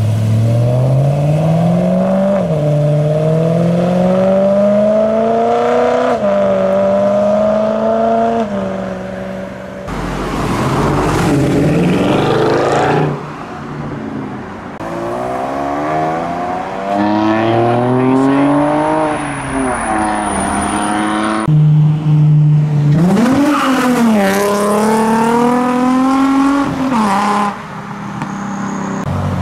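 Several performance cars accelerating hard away one after another: engine pitch climbs through each gear and drops back at each upshift. A brief thin high whine sounds near the middle.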